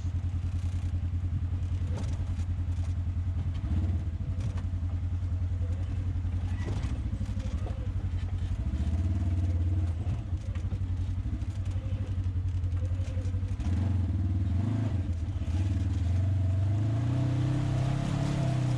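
Off-road vehicle engine running at low speed with some clatter over the trail, its note rising over the last few seconds as it revs up.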